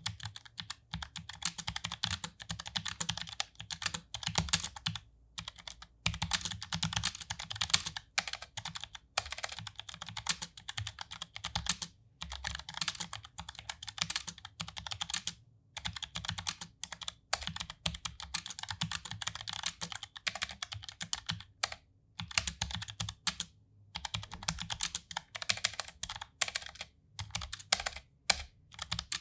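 Typing on a Tecware Phantom L low-profile mechanical keyboard with Outemu brown tactile switches: fast runs of keystrokes broken by short pauses.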